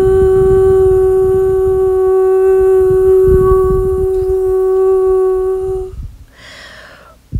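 A woman's voice toning: one long steady sung note held for about six seconds, then cut off by a short breath in near the end.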